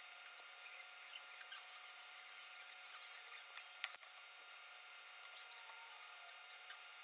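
Faint scattered clicks and rubbing of laptop parts and small tools being handled during a repair, with one sharp click just before the middle; otherwise near silence.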